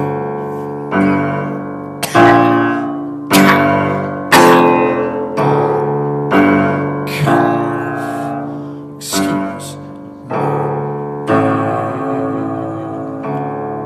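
Piano-type keyboard played in slow chords, one struck about every second and left to ring, the strikes loudest in the first few seconds.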